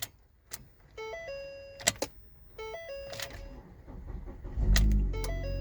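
Ford Focus dashboard warning chime sounds twice, with sharp clicks of the key in the ignition between. About four and a half seconds in, the engine catches and runs, once the key is pushed in as it is turned to get past a failed ignition lock housing.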